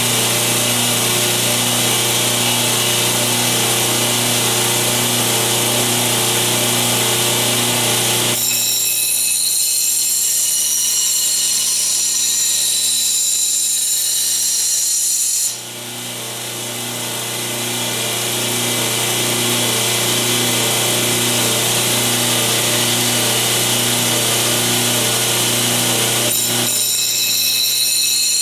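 Belt grinder running steadily while a knife's cutting edge is sharpened on it. From about eight to fifteen seconds in the low hum drops away and a high, hissing whine takes over, then the fuller running sound returns.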